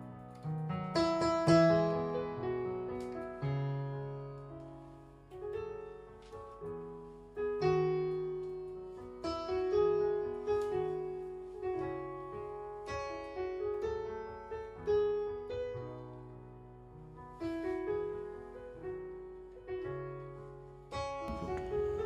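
Background music played on piano: slow, sustained chords and single notes struck one after another, each ringing and fading.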